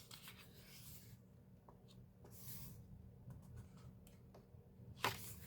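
Faint paper sounds from the pages of an album photo book being handled and turned: soft rustling swishes, with a sharper page flick about five seconds in.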